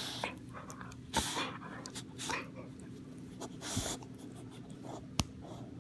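Boxer dog mouthing and chewing on a hand held at its muzzle: irregular breathy snuffles and rubbing noises, with two sharp clicks, one about a second in and one near the end, over a faint steady hum.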